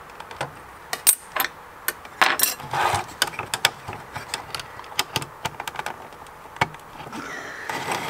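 Irregular sharp clicks, taps and light scrapes of metal and plastic as the small loose steel covers and plastic case of a Japanese police stop meter are pushed and prodded by hand and with a steel rule. There is a short scraping rustle about two to three seconds in.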